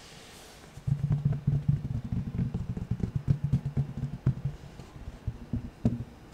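Fabric being scratched rapidly with fingernails, a dense, low, rough scratching that starts about a second in, with a few sharper taps near the end.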